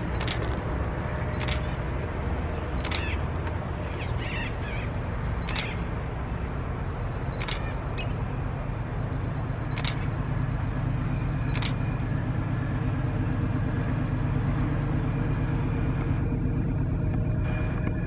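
Diesel locomotive hauling a passenger train, a steady low rumble that grows louder as it approaches over the last several seconds. Short high chirps come every second or two, and a faint high whine joins in later on.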